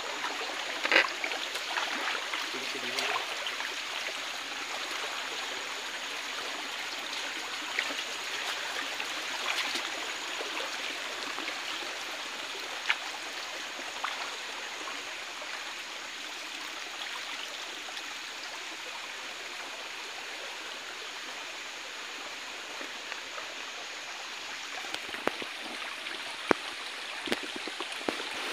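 Shallow forest stream flowing steadily over rocks, with a few short sharp clicks and knocks, more of them near the end.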